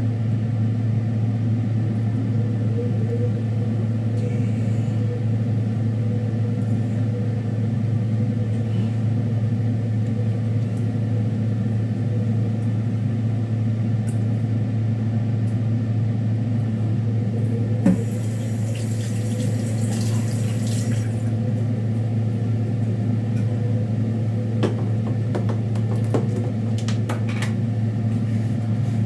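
A steady low hum of a kitchen appliance motor or fan. A single knock about 18 seconds in is followed by a brief hiss, and a few light clicks come near the end.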